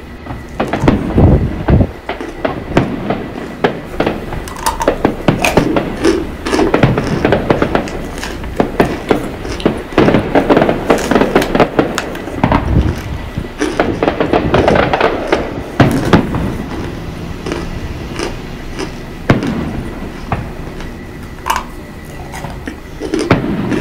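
Crunching and chewing of cornstarch chunks close to the microphone, a dense run of crackly crunches, with fireworks popping and booming further off.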